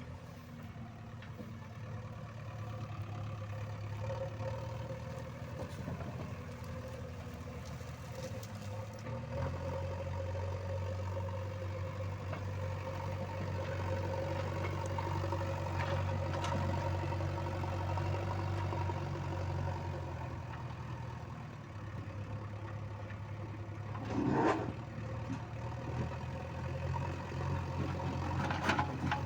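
Diesel engine of a JCB 3DX backhoe loader running steadily, its note stepping up and louder about a third of the way in. A brief loud knock comes about three-quarters of the way through, and a lighter one near the end.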